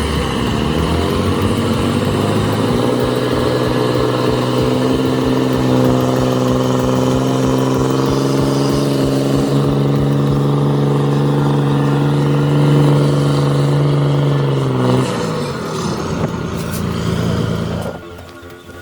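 Scania 113 truck's diesel engine revving up and holding high revs under hard load, pulling on a slippery quarry road. The revs drop away about fifteen seconds in.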